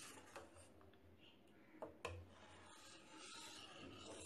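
Faint scraping of a steel ladle stirring curdled milk in a steel pot, with two light clicks of the ladle against the pot, about half a second and two seconds in.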